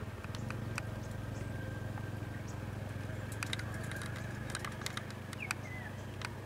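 A vehicle engine idling with a low steady hum, with scattered sharp clicks and a brief bird chirp about five and a half seconds in.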